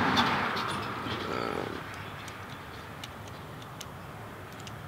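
Faint, scattered small metal clicks of a pocket multi-tool being opened and its pieces handled, while the sound of a car going by fades out over the first two seconds.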